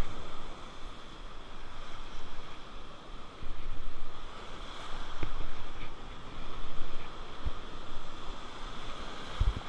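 Small surf waves washing in and out over the shallows of a river-mouth bar, swelling and fading every second or two, with wind buffeting the microphone and a few low thumps.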